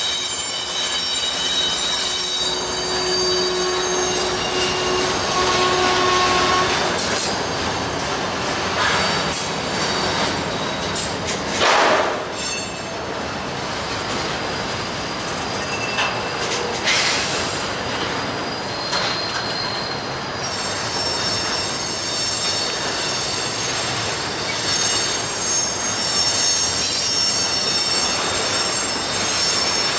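Double-stack intermodal train's steel wheels squealing against the rails as the well cars roll slowly through a curve, several steady high-pitched squeal tones over a continuous rumble. Sharp knocks stand out about twelve seconds in and again about five seconds later.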